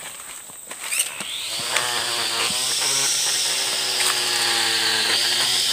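Cordless battery-powered string trimmer switched on about a second in, its electric motor whining up to speed and then running at a steady high pitch. The pitch sags briefly a couple of times as the line bites into woody sapling stems.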